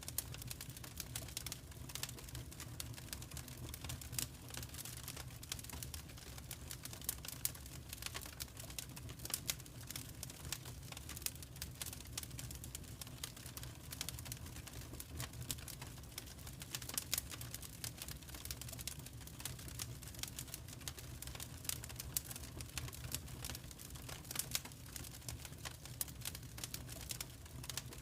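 Wood fire crackling in a fireplace: a dense, irregular run of small sharp pops and snaps over a steady low rumble.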